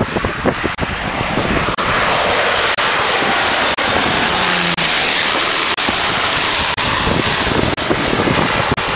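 Small single-engine propeller plane passing low overhead on final approach: a loud, steady rushing drone that builds over the first few seconds. About halfway through, a lower tone dips in pitch as it goes by.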